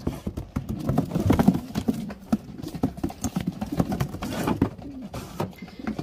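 Pigeons cooing, with a run of knocks and rattles as a racing pigeon is lifted out of a wire-topped wooden basket.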